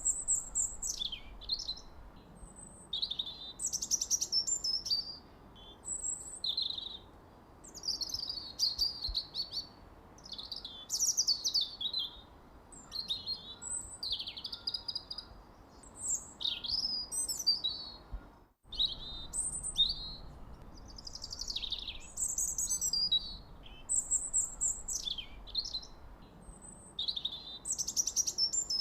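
Several songbirds chirping and singing at once, a steady stream of short, high, quick phrases overlapping one another. The sound cuts out for an instant about two-thirds of the way through.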